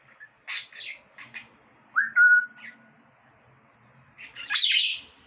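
Pet parrot calling: a few short clicky chirps, then a whistled note about two seconds in that rises and holds steady for about a second, then a loud harsh squawk near the end.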